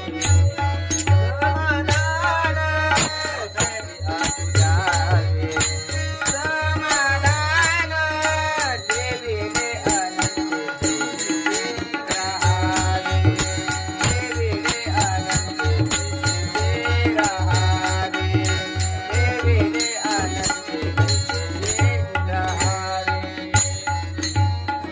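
Marathi devotional bhajan music: a sung melody over a hand drum and the steady clashing of small hand cymbals. The drum drops out briefly about ten seconds in.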